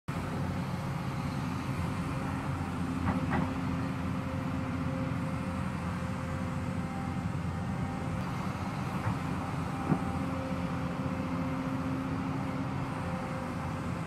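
Hyundai excavator's diesel engine running steadily under hydraulic load as the arm and bucket work, with a sharp knock about three seconds in and another near ten seconds.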